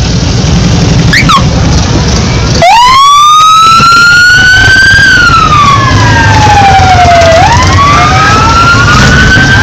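Motorcycle engines rumbling at low speed as bikes ride past; about three seconds in a loud siren starts wailing, rising, falling slowly, then rising again. A short falling whistle sounds about a second in.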